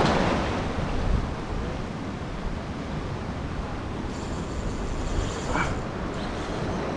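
Wind buffeting the microphone over the steady wash of surf against a saltwater jetty, a dense even rush with heavy low rumble.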